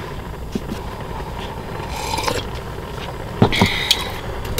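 Rice cake sticks shifted by hand on a small wire grill grate over a camp gas stove: light rubbing and scraping, with a louder cluster of knocks and scrapes about three and a half seconds in, over a steady low rumble.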